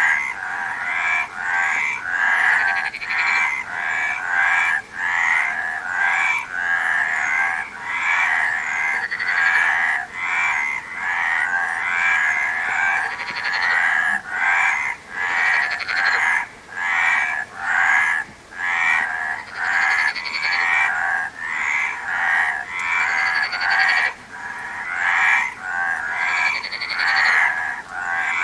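Frogs croaking in a steady chorus, rasping calls repeating about once a second with hardly a gap between them.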